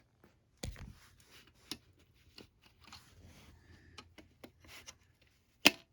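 Handling noise from a plastic smoke alarm as a 9-volt battery is fitted: scattered small clicks, rubbing and scraping, with a sharp, loud click near the end.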